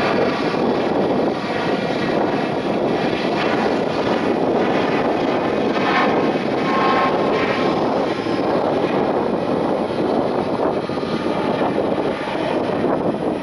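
Boeing 737 MAX 9's CFM LEAP-1B turbofan engines running, a loud, steady jet roar with a faint whine above it.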